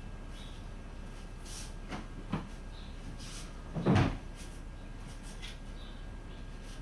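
A few short knocks, then a louder thump about four seconds in, like a wooden cupboard door or drawer being handled, over a low steady background hum.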